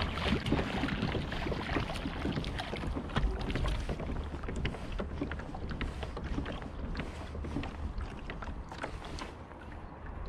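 Hooked sea trout splashing and thrashing at the water's surface beside a kayak, with wind on the microphone. The splashing is heaviest in the first few seconds and eases off, leaving a run of scattered sharp clicks.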